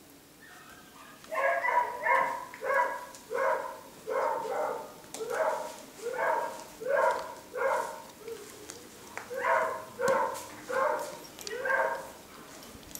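Beagle puppy barking in a steady run of short, high yaps, about one and a half a second, starting just over a second in with a brief pause about two-thirds of the way through.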